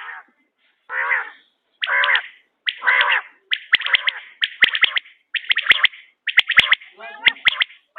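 Quail calling: a run of about eight short, harsh calls, roughly one a second, each with sharp clicks.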